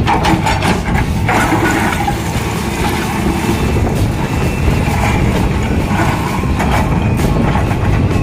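Hyundai crawler excavator's diesel engine running hard under load, with stones clattering and knocking against the steel bucket as it digs into and pushes a heap of crushed stone.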